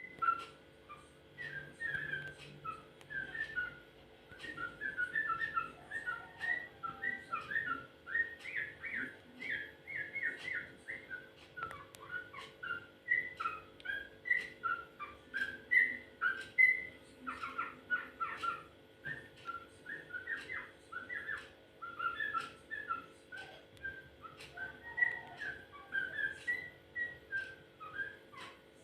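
Yellow-vented bulbul singing a continuous run of short, quick whistled notes and chirps, a song the owner calls strange-sounding. A faint steady hum runs underneath.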